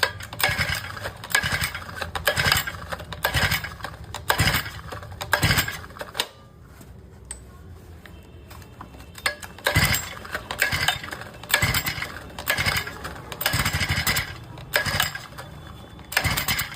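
Four-stroke brush cutter being pull-started on its recoil starter: a quick run of rope pulls, a pause of about three seconds near the middle, then another run. The engine turns over but does not catch, a starting problem with the choke still off.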